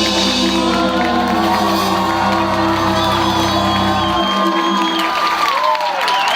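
Live band music ending on sustained held notes over a deep bass drone that cuts off about four seconds in, leaving high wavering whistle-like tones as the crowd begins whooping and cheering.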